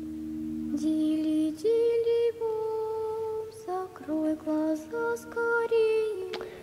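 Slow lullaby-style music of long held notes, fading in at the start and changing note every second or so.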